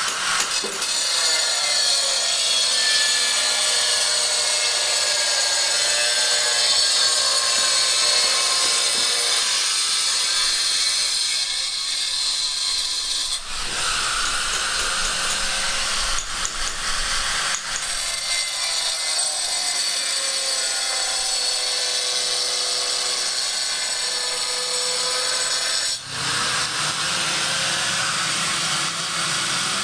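Construction work with power tools: a steady whining cut from a saw or grinder, in several short stretches that change abruptly.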